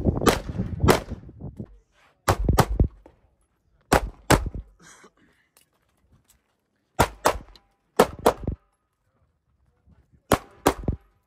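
Gunshots from a competitor's firearm fired at close range, mostly in quick pairs about a third of a second apart, in groups of two or three with short pauses between them; the last group near the end is three shots. Each shot has a sharp, ringing, clanging quality.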